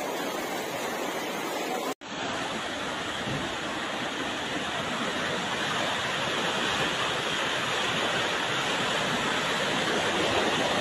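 Muddy floodwater rushing down a street in a steady, even torrent. The sound cuts out for an instant about two seconds in, then carries on unchanged.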